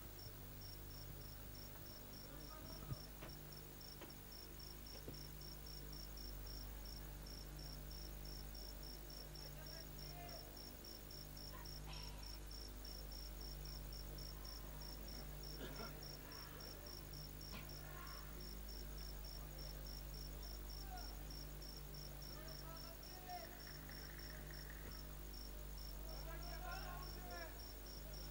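A cricket chirping steadily, a high even chirp about three times a second, over a low steady hum. Faint voices come through now and then.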